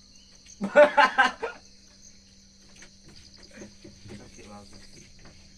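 Crickets trilling steadily in a high, pulsing chorus. About half a second in, a brief loud voice cuts across them, with fainter voices later.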